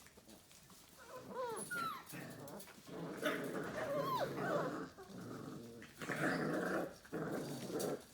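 Five-week-old Labrador retriever puppies play-fighting: rough growls in several stretches, with a few short, high, falling whimpers or yips, as the litter sorts out its pecking order.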